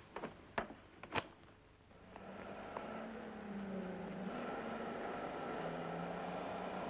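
Three sharp clicks of high-heeled footsteps on a wooden staircase in the first second or so. From about two seconds in, a steady wash of street traffic noise with a low drone.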